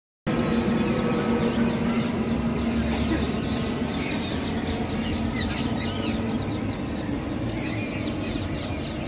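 Jet airliner passing overhead, a steady engine drone with a held tone, while many birds chirp throughout. The sound cuts in abruptly just after the start.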